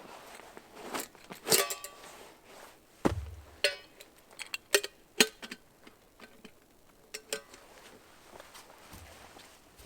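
Metal camp cookware and utensils being handled: a series of sharp clinks and knocks, several ringing briefly, with a dull low thud about three seconds in.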